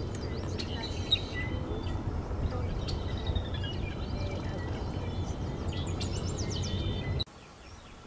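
Small birds chirping and trilling in short calls over a steady low outdoor rumble; the sound cuts to a quieter hiss about seven seconds in.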